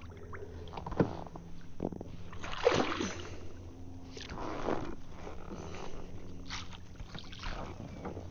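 Water splashing and sloshing beside a kayak, with several brief knocks on the hull, as a hooked bass is fought at the side and landed; the biggest splash comes about two and a half seconds in.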